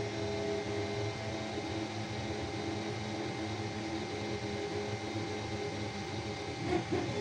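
Flsun Q5 delta 3D printer printing: its stepper motors whine in short tones that shift in pitch as the print head moves, over the steady whir of its cooling fans, with a short louder chirp near the end.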